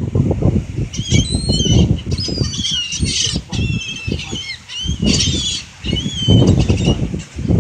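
A flock of birds taking off and flapping their wings close by, a dense rapid fluttering. From about a second in, many short, high, chirping calls sound over the wingbeats.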